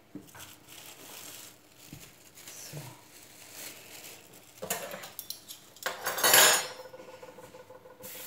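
Clear plastic cling film rustling and crackling as it is peeled off a ball of chilled dough and bunched up, in a string of short bursts with the loudest crinkle about six seconds in.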